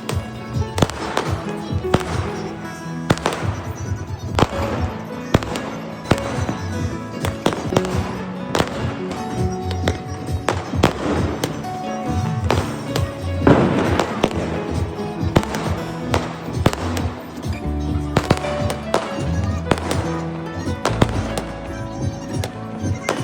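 Firecrackers and fireworks going off in quick, irregular bangs, with a louder crackling burst about halfway through, heard over background music.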